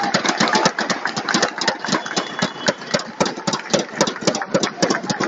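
Arena crowd applauding: a fast, uneven run of sharp hand claps.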